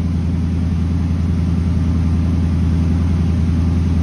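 Rebuilt Mercury 255 flathead V8 with a mild cam running on an engine dyno, heard through the dyno cell window: a steady, even drone at a constant speed, getting slightly louder.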